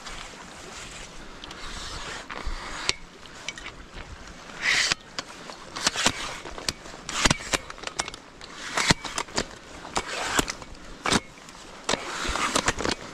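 Aluminium telescopic ladder being handled and extended, its metal sections knocking and clicking sharply many times, over a steady background hiss.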